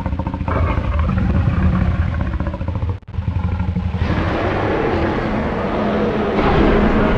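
Synthesized giganotosaurus roars: a deep, rumbling creature call that breaks off for a moment about three seconds in, then resumes as a rougher, noisier roar.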